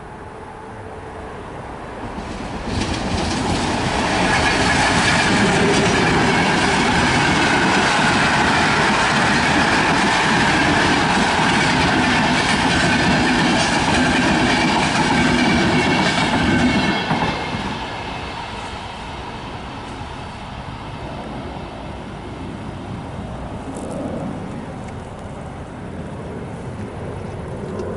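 Passenger train passing close by, its coaches rumbling over the rails; the sound builds quickly about two seconds in, holds loud and steady, and dies away after about seventeen seconds to a lower steady noise.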